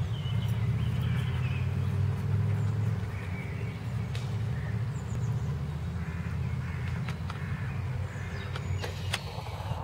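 Outdoor ambience: a steady low rumble, strongest in the first few seconds, with birds chirping faintly and a few short clicks.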